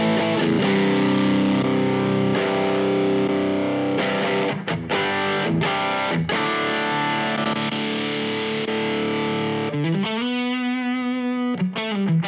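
Electric guitar played through the IK Multimedia X-Drive distortion pedal on one of its presets: distorted chords and riffs, with one chord left to ring for about two seconds near the end.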